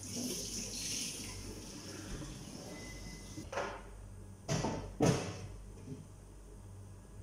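Water running briefly from a kitchen tap, then three sharp knocks about a second apart, the last the loudest.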